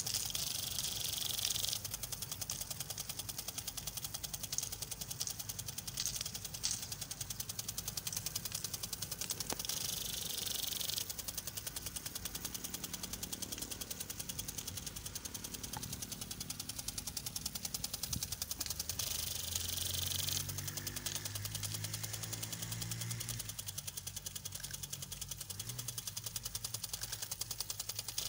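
ATOM 15 impact sprinklers running, their swinging arms ticking rapidly and steadily as the water jets spray, with a louder hiss of water about every nine to ten seconds.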